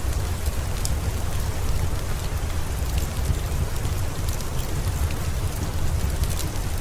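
Steady heavy rain: an even hiss over a deep, continuous low rumble, with a few sharp clicks scattered on top.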